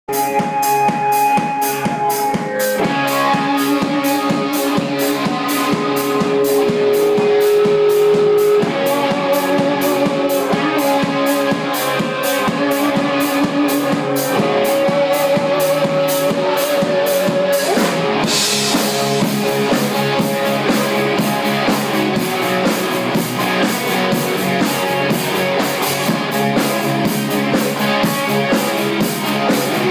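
Live rock band playing: electric guitar holding long lead notes over electric bass and a drum kit keeping a steady beat. A cymbal crash comes a little past halfway.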